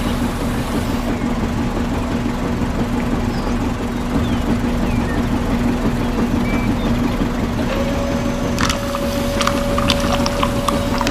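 Small motor running steadily with a constant hum. About nine seconds in, a higher steady whine joins it along with scattered clicks and rattling.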